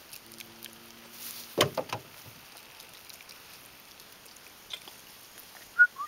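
Low outdoor background with a short cluster of knocks about a second and a half in, and a brief two-note chirp just before the end.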